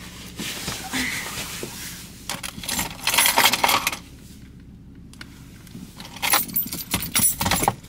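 Clinking and rustling as small hard things are handled, in three spells. The loudest comes about three seconds in, and another comes near the end.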